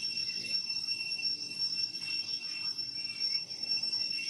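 Steady, high-pitched insect chorus droning unbroken in the trees.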